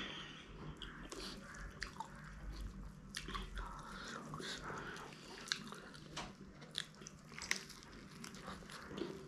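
Close-up mouth sounds of a person biting into and chewing an egg roll filled with noodles, with sharp wet clicks of the lips and mouth at irregular moments.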